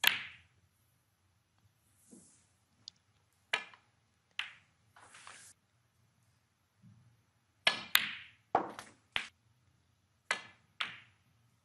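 Snooker balls and cue: a series of about a dozen sharp clicks, some close in pairs, as the cue tip strikes the cue ball and the balls knock together and drop into pockets.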